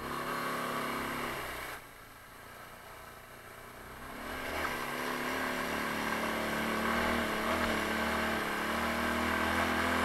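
Taotao 150cc ATV's single-cylinder engine running under throttle. It eases off about two seconds in, picks up again about four seconds in, and runs steadily and louder through the rest.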